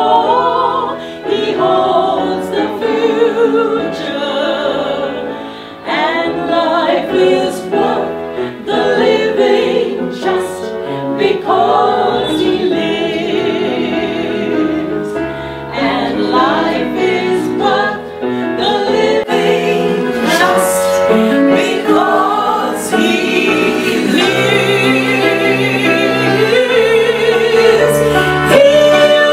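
Choir of women's voices singing with a wide, wobbling operatic vibrato.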